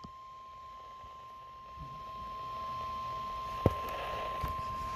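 NOAA Weather Radio's 1050 Hz warning alarm tone, a single steady tone over receiver hiss that grows a couple of seconds in, with one sharp click partway through. The tone signals that a warning broadcast, here a severe thunderstorm warning, follows.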